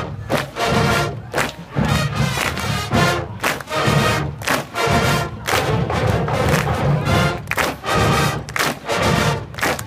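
Loud music with a pulsing beat, about two strong pulses a second.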